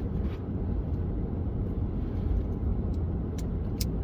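Small metal clicks of a folding multitool's knife blade being handled and locked open, twice near the end, over a steady low rumble.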